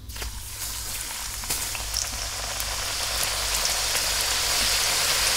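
Homemade wonton wrappers sizzling in hot oil in a frying pan. It is a hissing patter that starts as they go in, grows steadily louder, and has scattered pops.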